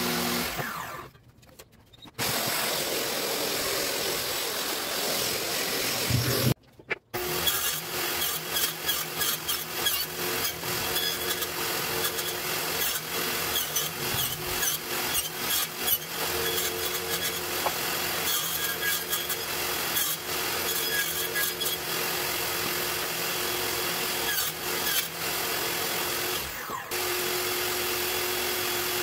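Table saw running and cutting wood, with many sharp knocks and clatters from handling the boards. The sound cuts out abruptly twice in the first few seconds, then runs on.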